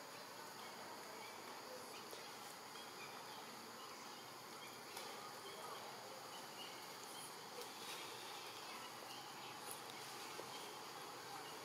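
Faint, steady, high-pitched insect drone of forest ambience, with a few faint clicks.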